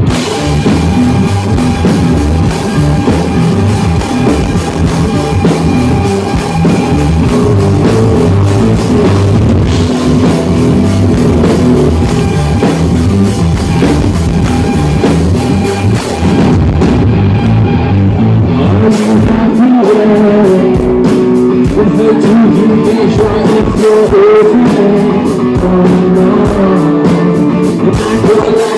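Live rock band playing at full volume: electric guitars, bass and a drum kit. About two-thirds of the way through the low end drops back and a male voice comes in singing.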